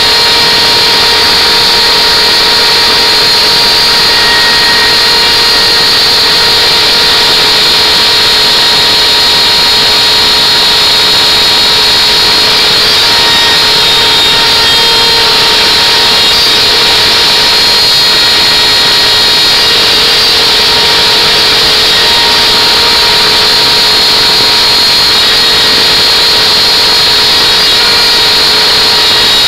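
Small power tool motor running steadily at constant speed, a loud, even whine with no change in pitch.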